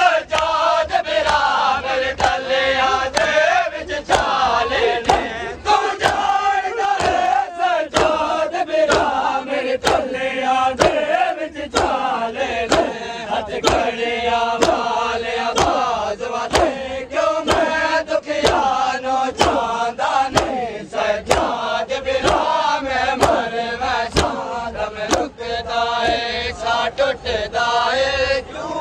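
Men's voices chanting a noha together, with massed chest-beating (seena zani): open hands slapping bare chests in a steady beat of about one strike a second.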